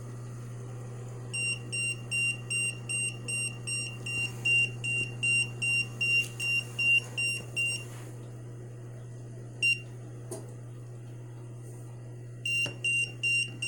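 Handheld EMF meter's alarm beeping rapidly, about three short high beeps a second, which signals a reading above its danger threshold. The beeps stop for a few seconds after the middle, with one lone beep, then start again near the end. A steady low hum runs underneath.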